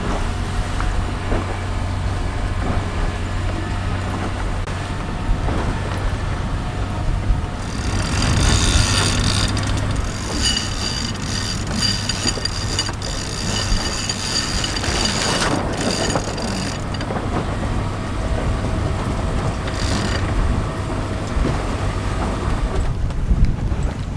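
Genoa being unfurled on a small sailing catamaran: the genoa sheet is hauled in, with a stretch of mechanical clicking and rattling from about eight to seventeen seconds and a brief burst again near twenty seconds, over a steady low rumble.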